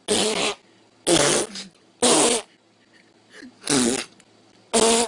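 Five short fart noises, one roughly every second.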